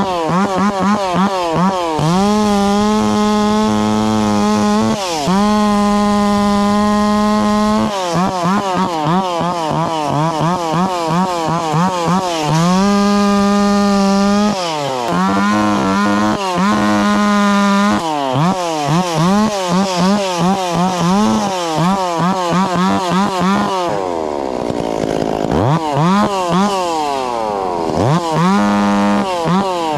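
Two-stroke chainsaw running hard, held at full throttle for stretches of a second or two, with the throttle repeatedly let off and opened again so the engine note drops and climbs. Near the end it falls off to a low idle and revs back up.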